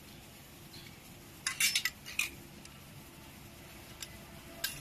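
Thin parts of an airplane wind-spinner kit clicking and rattling against each other as the wings are fitted on by hand: a quick cluster of clicks about one and a half seconds in, and another click near the end.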